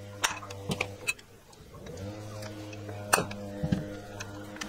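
Scattered sharp metallic clicks and knocks as engine parts are handled: a crankcase half moving on the crankshaft of a Robin EC10 two-stroke engine, with the strongest knock about three seconds in. A steady low hum runs underneath.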